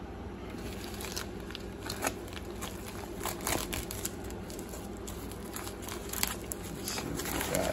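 Plastic bubble mailer and its tape crinkling and tearing as they are pulled open by hand, in irregular crackles.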